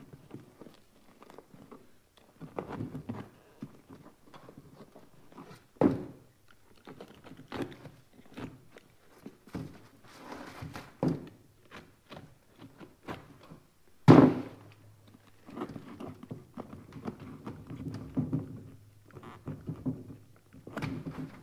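Razor knife cutting and sawing through a rubber-and-nylon insulated winter boot, with scraping and rustling as the boot is pulled and turned on a table. Two sharp knocks stand out, the louder about 14 seconds in.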